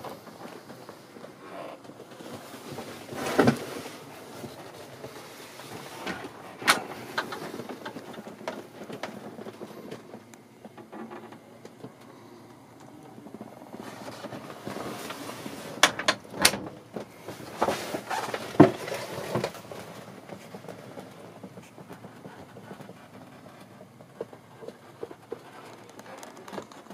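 Handling noise and low rustling from a handheld camera moving through a small boat cabin, with scattered knocks and sharp clicks: one a few seconds in, one near a quarter of the way through, and a cluster just past the middle.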